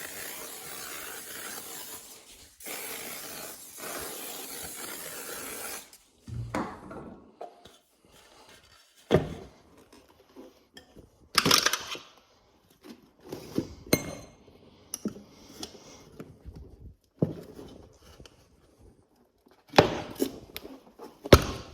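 Spray lubricant hissing from an aerosol can in two long bursts onto the tire bead. It is followed by scattered metallic clinks and knocks as tire levers work the bead of a motorcycle tire onto the rim.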